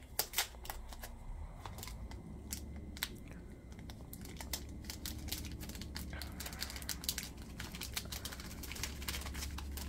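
Trading cards in clear plastic sleeves and holders being handled and flipped through by hand: a run of light, irregular plastic clicks and crinkles over a low steady hum.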